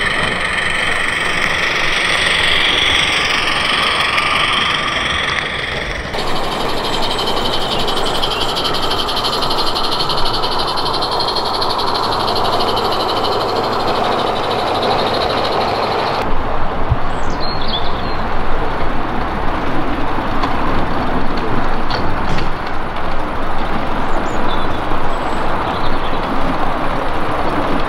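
Small live-steam model locomotives running, with a steady hiss of steam. The sound changes abruptly twice, and after about sixteen seconds it turns rough and fluttering.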